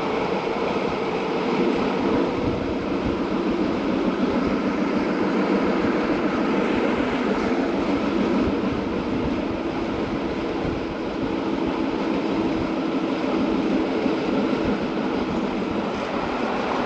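A GoldenPass Line train running along the track with a steady rumble of wheels on rails.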